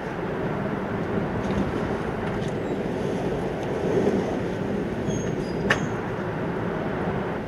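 Steady rumble and hum of a Hokkaido Shinkansen train running on the line, heard from inside the passenger car, with one short sharp click about five and a half seconds in.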